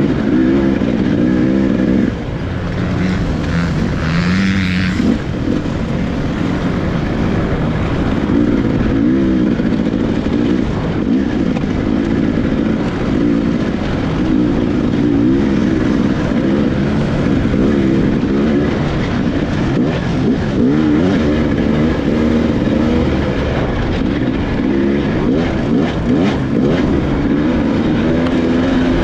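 Off-road motorcycle engine heard close up from onboard the bike, running hard with the pitch rising and falling constantly as the throttle is worked over a rocky trail, with a brief drop in revs about two seconds in.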